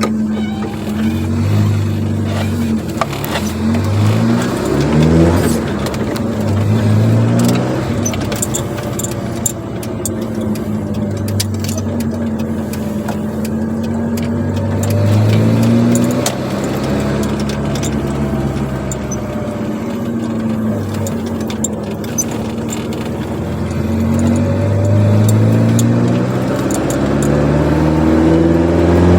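Chevrolet Corsa Wind with an aftermarket sport exhaust driving: the engine note climbs in steps through the gears in the first few seconds, settles to a steady cruise, drops into a lower rumble around the middle as the car slows, then builds again near the end.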